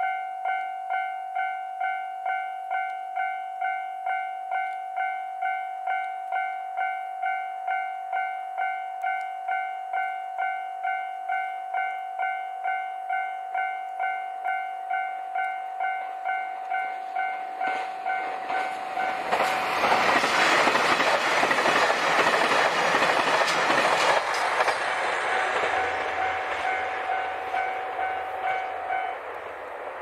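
Japanese level-crossing alarm ringing a steady, repeating electronic ding, about one and a half strikes a second. A little past halfway, a Kiha 261 series diesel limited express passes over the crossing: a loud rush for several seconds, louder than the bell, which then fades. The alarm stops shortly before the end as the barriers begin to lift.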